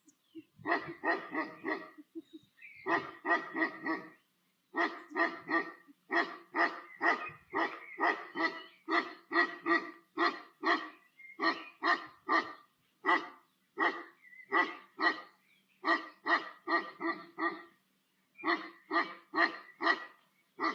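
A dog barking over and over, about two barks a second: a few short bursts, then a long steady run, a brief pause, and a few more barks near the end.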